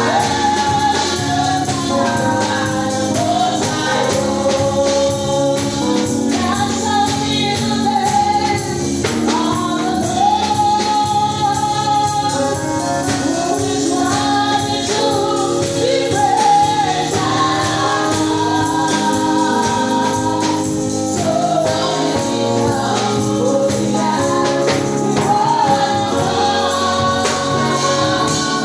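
Congregational or choir gospel singing with band accompaniment and a shaken tambourine, a steady praise song.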